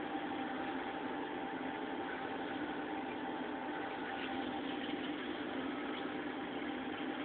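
Reef aquarium's pumps and circulating water: a steady hum with a hiss and a faint constant whine.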